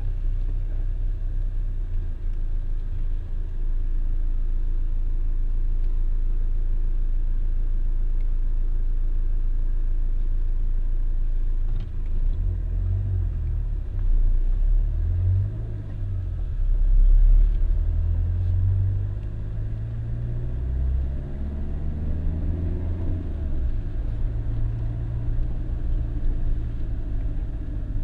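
Inside a car while driving: a steady low engine and road rumble, with the engine note rising and falling several times about halfway through before settling back to a steady drone.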